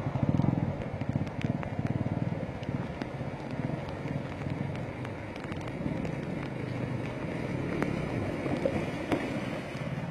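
Motorcycle engine running as the bike rides through shallow floodwater, with water spraying off the wheels; loudest in the first second or so.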